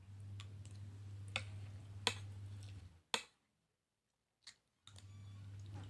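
A few sharp clicks of a plastic spoon on a plate while eating, over a steady low hum that cuts off abruptly about three seconds in and comes back near the end.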